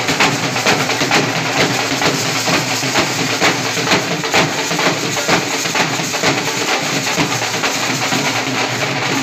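Wedding band drummers beating white-headed side drums with sticks and a strapped dhol together in a loud, dense, unbroken drumming rhythm.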